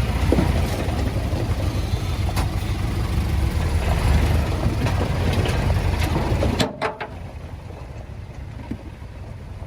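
Heavy-equipment diesel engine running with a steady low rumble. About two-thirds of the way through the sound drops abruptly to a quieter engine rumble.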